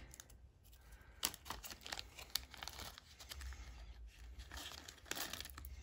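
Small clear plastic zip-lock bag crinkling as fingers pull it open, with irregular small crackles.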